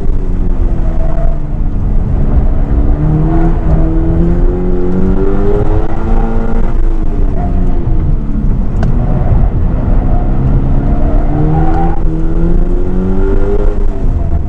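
Sports car engine heard from inside the cabin on an autocross run. Its pitch climbs under acceleration and drops as the throttle is lifted, several times over, with a steady rumble beneath.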